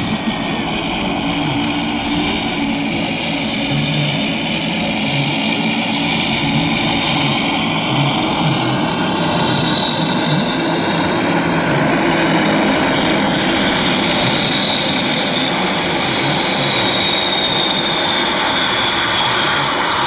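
Large radio-controlled scale model of a Transall C-160 taxiing on its two propeller engines: a steady propeller drone, with a high whine that comes in about nine seconds in and again from about fourteen seconds, sinking slowly in pitch.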